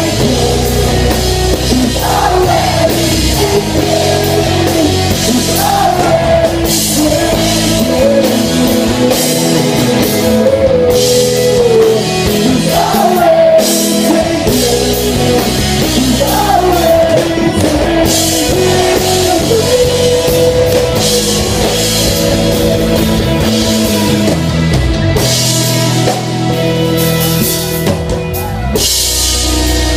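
Live rock band playing a ballad: a male lead voice singing over electric guitar, bass guitar and drums.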